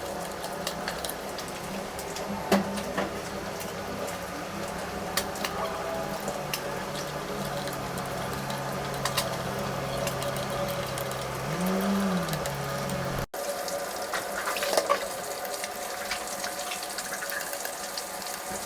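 Water running and splashing, with scattered clicks and knocks.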